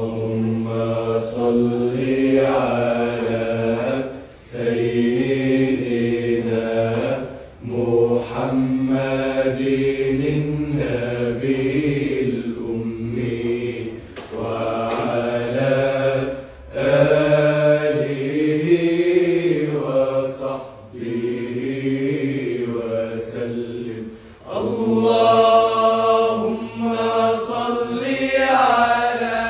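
Men's voices chanting an unaccompanied Islamic devotional song (nasheed) in long, ornamented phrases with short breaks between them, over a steady low hum from the group.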